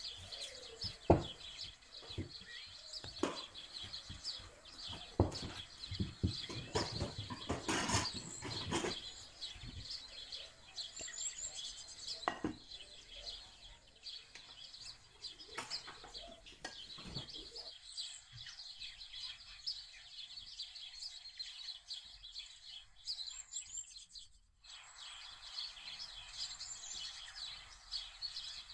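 Small birds chirping continually in the background. During the first half there are knocks and rubbing as a hand mixes flour in a glass bowl, with one sharp knock about a second in.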